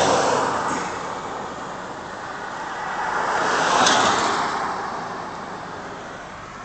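Road and wind noise of a car driving along streets, a steady rush that swells near the start and again about four seconds in.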